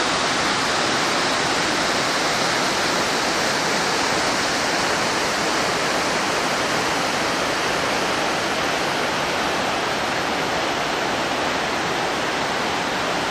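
Whitewater river rushing over boulders and small cascades: a steady, loud rush of water.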